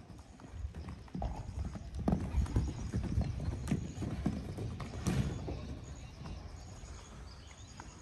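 Horse hooves clopping on the ground as a horse moves about, in irregular knocks that are loudest in the middle of the stretch.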